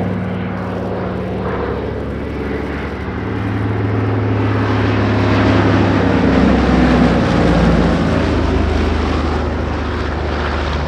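Consolidated PBY-5A Catalina flying past, its two Pratt & Whitney R-1830 Twin Wasp radial engines running with a steady drone. The sound grows louder to a peak about six seconds in, the pitch dropping a little as it passes, then eases off.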